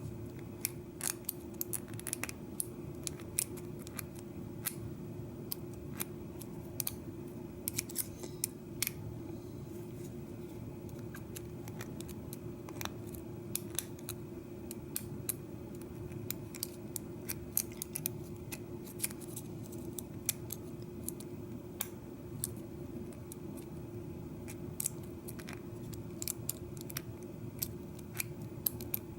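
Irregular small metallic clicks and ticks of a lock pick working the pins of a Schlage 1-inch mortise cylinder held under pry-bar tension, over a steady low hum.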